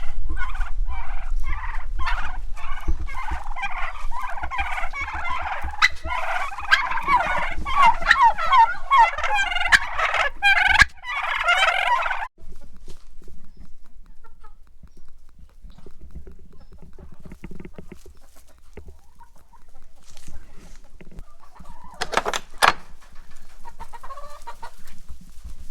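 Flock of chickens clucking and calling, many overlapping calls, cutting off abruptly about halfway through; a few scattered calls return near the end, over a low rumble.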